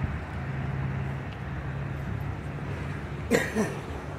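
Low steady engine hum from a vehicle that fades after about a second, then a short cough-like sound from a person, twice in quick succession, a little over three seconds in.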